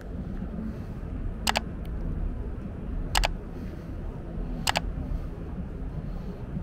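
Three sharp double clicks, about a second and a half apart, over a low steady rumble of outdoor city noise.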